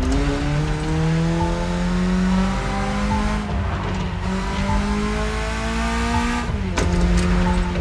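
BMW E30 engine accelerating, its pitch climbing steadily, then dropping sharply at a gear change about six and a half seconds in and holding steady after it.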